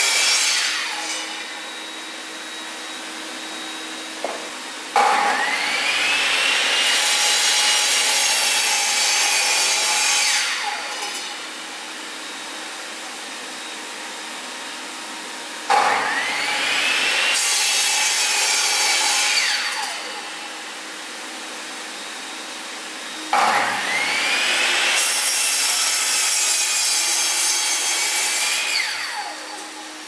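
Metabo sliding mitre saw started three times, each time with a sharp switch-on and a rising motor whine, its blade cutting through a block of wood for about four seconds before the motor spins down. The tail of an earlier cut ends in the first second. Between cuts a commercial wet and dry vacuum cleaner, hooked to the saw's dust port for dust extraction, runs steadily.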